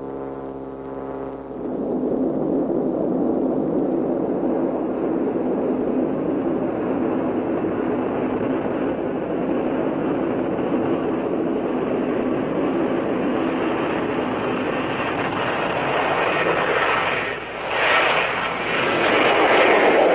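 A steady mechanical vehicle rumble starts about a second and a half in and runs on, dipping briefly near the end.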